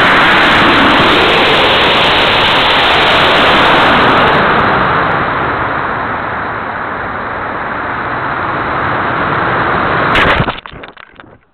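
Loud, steady rushing noise of an Estes CC Express model rocket in flight, heard from a camera on its body: motor thrust and air rushing past, easing a little midway. About ten seconds in there is a sharp pop, after which the noise falls away quickly.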